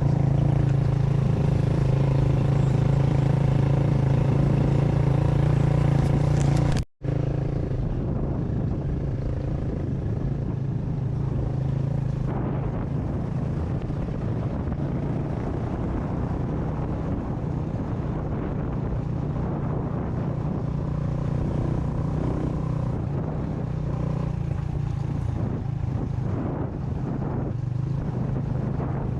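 Motorcycle engine running at a steady speed with a constant low drone, under road and wind noise from riding. The sound drops out for an instant about seven seconds in, then carries on much the same.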